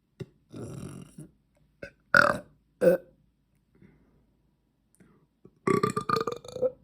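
A girl burping on command: two short, loud burps about two and three seconds in, then a longer belch with a held pitch near the end.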